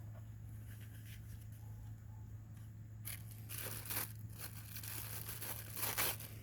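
Rustling and crinkling as work gloves and safety glasses are handled and put on, in several bursts during the second half, the loudest about four and six seconds in, over a steady low hum.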